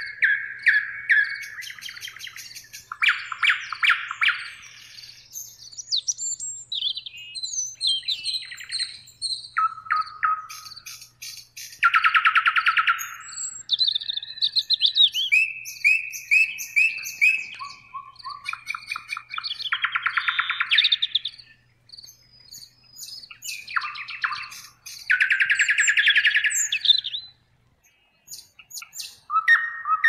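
Nightingale singing: a string of varied phrases a second or two long, each made of rapid repeated notes and trills, with short pauses between them.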